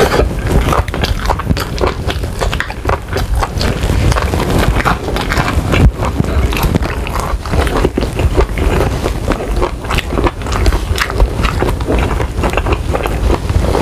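Close-up mouth sounds of chewing saucy chicken wings: wet smacking and crunching clicks in quick succession.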